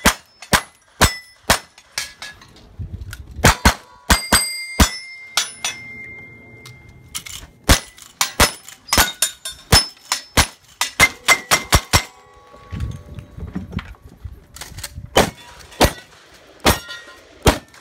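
Rapid gunfire at steel targets: a revolver and a lever-action rifle fired in quick strings, many shots followed by the ring of the struck steel plates, with short pauses between strings.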